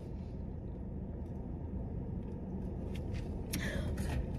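Steady low rumble inside a car cabin. A few faint soft mouth sounds and clicks come about three seconds in, as a drink is sipped through a straw.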